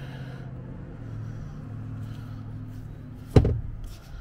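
A hinged flip-top seat-hatch lid on a fiberglass center-console boat shutting with a single sharp thud about three seconds in, over a steady low hum.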